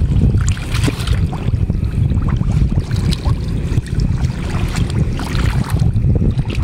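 Hands and arms groping through soft wet mud and shallow water, feeling for fish, with many short squelches and splashes. Behind them, wind buffets the microphone in a heavy low rumble.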